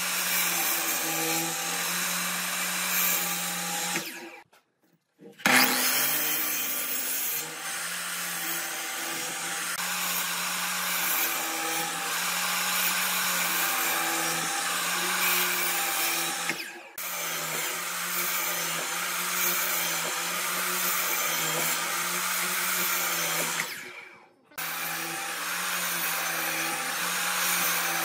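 Compound miter saw running and cutting repeatedly into a wooden board, making a row of evenly spaced grooves: a steady motor hum under the sawing, which swells and eases about every second and a half. The sound drops out briefly about four seconds in and again near the end.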